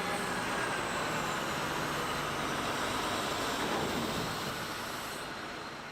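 Heavy machine engine running steadily, a noisy rumble that fades in and fades out like an added sound clip.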